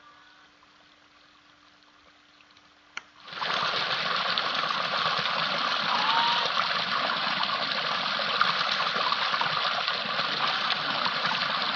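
A faint low hum, then a sharp click and, just after it, a sudden loud, steady rush of running water that continues unbroken.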